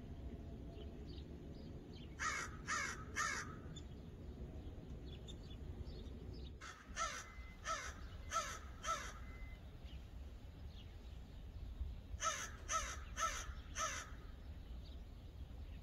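A crow cawing in three bouts of three or four harsh caws, roughly two caws a second, over a faint steady low rumble.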